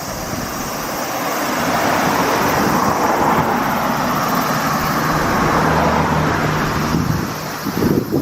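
A motor vehicle passing close by, its noise swelling over a couple of seconds, holding with a steady engine hum, then easing near the end, over wind buffeting the microphone.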